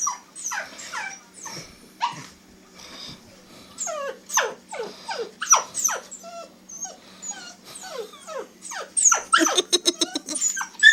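Puppy whining and yelping in high cries that slide steeply down in pitch, over and over, with a quick run of short sharp sounds near the end.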